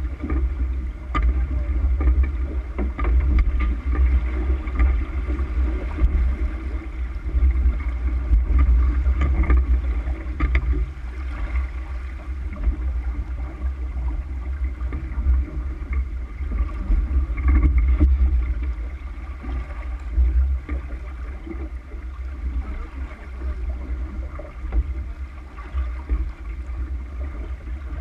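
Water rushing along the hull of a sailboat moving under sail, over a heavy, fluctuating wind rumble on the microphone, with a few small knocks scattered through.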